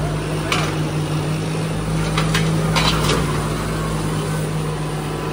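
Two 55 hp diesel tractor engines running hard under heavy load in a tug-of-war pull, a steady low drone with one steady tone. A few short sharp noises come over it around the middle.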